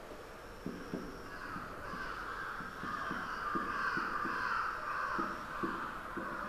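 Marker pen writing on a whiteboard in soft, irregular strokes and taps, under a louder harsh sound from about a second and a half to about five seconds in.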